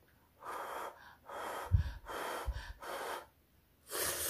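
Four short breaths blown on a lifted load of hot ramen noodles, then a longer slurp of the noodles near the end. A dull thump comes between the breaths, the loudest moment.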